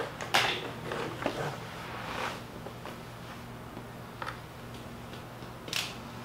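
Scattered light knocks and clicks from a laptop being set down, opened and handled, about five in all, over a steady low hum.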